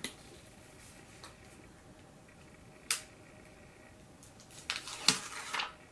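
Makeup packaging being handled, giving sharp clicks: one at the start, one about three seconds in, and a cluster of clicks and rustling near the end, the loudest of them a little after five seconds.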